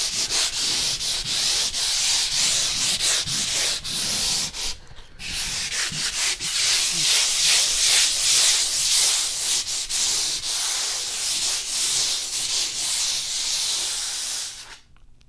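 150-grit sandpaper rubbed by hand over a painted ceiling: a steady scratchy hiss of many short strokes, with a brief break about five seconds in, stopping just before the end. A light scuff-sanding pass to knock down dried roller nap and bumps of old paint before painting.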